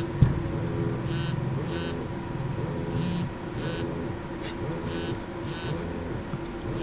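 Several mobile phones receiving calls at once, buzzing on a tabletop in repeating pulses about once a second, with a single knock about a quarter second in.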